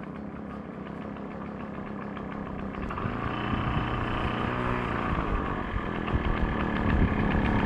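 Small 50 cc motorcycle engine running under way, growing louder and rising in pitch as it speeds up over the first five seconds, then holding steadier.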